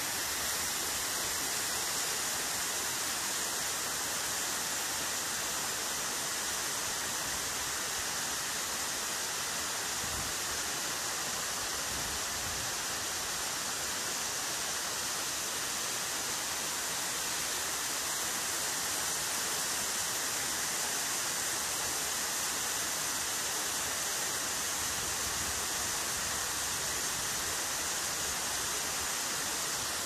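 Mençuna waterfall: a steady, unbroken rush of falling water, an even hiss with no let-up.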